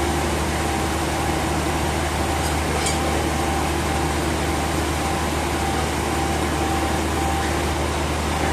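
Sawmill machinery running steadily: a constant motor hum under a wide, even noise, with no cutting strokes or changes.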